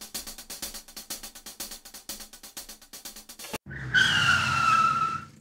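Edited outro sound effects: a fast, even clicking rhythm, then about three and a half seconds in a sudden, louder hissing screech with two falling tones, like a tire squeal.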